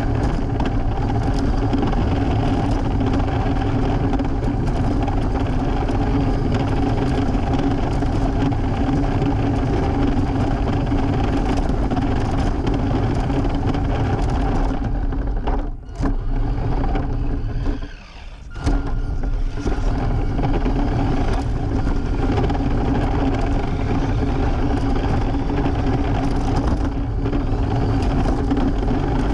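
Radio-controlled scale truck driving on pavement: a steady whine from its electric motor and gears, with tyre and rolling noise. The motor drops out briefly twice about halfway through.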